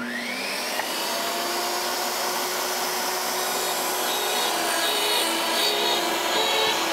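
DeWalt jobsite table saw switched on, its motor whine rising in pitch over the first second, then running steadily as the blade cuts a half-depth kerf into an MDF board fed with a miter gauge.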